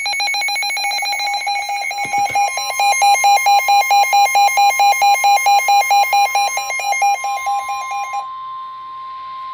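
Weather alert radio's electronic alarm pulsing rapidly, about four beeps a second, signalling an incoming warning. About two seconds in, the steady NOAA Weather Radio 1050 Hz warning tone joins it. The pulsing alarm stops near the end, leaving the 1050 Hz tone on its own.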